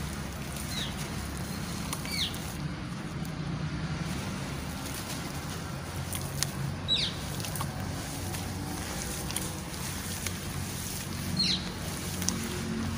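Hands crumbling dry, crunchy gritty cylinders into a pan of muddy water: soft crunching with grit pattering down into the wet mush, over a steady low rumble. A few short falling bird chirps sound now and then.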